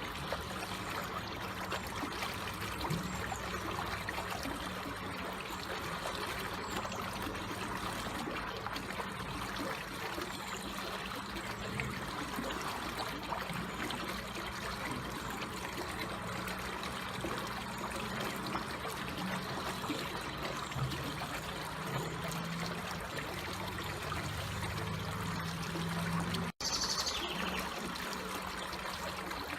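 Water flowing slowly and steadily, a gentle trickling stream. Near the end the sound cuts out for an instant, then a short high falling chirp is heard.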